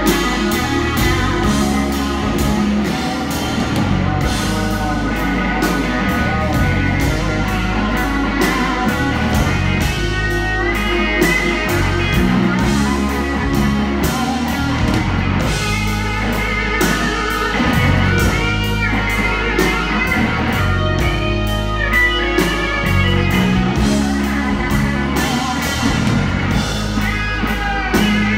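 Live band playing: a Telecaster-style electric guitar takes the lead with several bent notes, over a drum kit keeping time on cymbals and a full low end.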